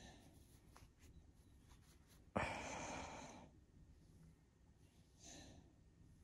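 Miniature Schnauzer lets out one long sigh through its nose, starting suddenly about two seconds in and trailing off over about a second, then a softer breath about five seconds in; otherwise near silence.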